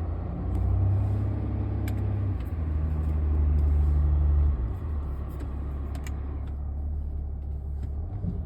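Mercedes-Benz W211 E280 CDI's V6 diesel engine running, swelling under load twice and then settling, with the air-conditioning compressor whine that comes in at part load; the owner suspects a bad compressor pulley or the compressor itself.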